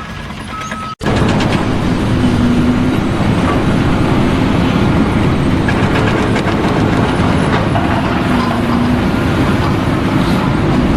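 Loud, steady mechanical rumble with a rattling clatter, starting abruptly about a second in; before it, a few short electronic beeps.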